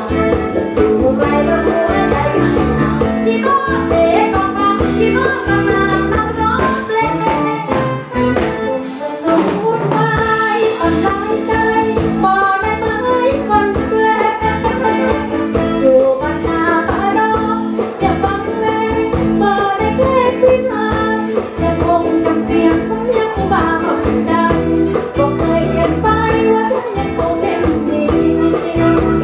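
Women singing into microphones over amplified instrumental accompaniment with a steady beat.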